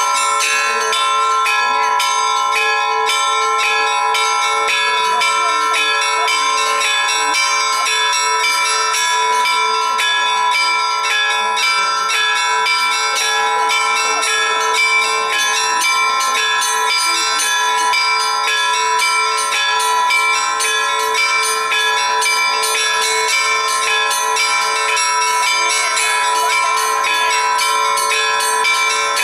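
Church bells ringing without a break: rapid strokes of smaller bells, many a second, over the steady lingering hum of larger bells.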